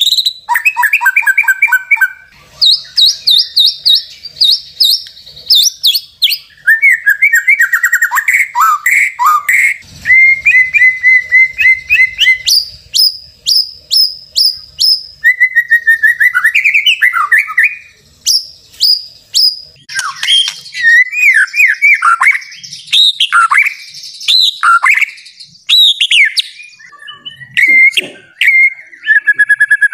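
White-rumped shama (murai batu) singing loudly and continuously in full, agitated song. Its varied phrases mix whistles, warbles and runs of fast repeated high notes, with short pauses between them.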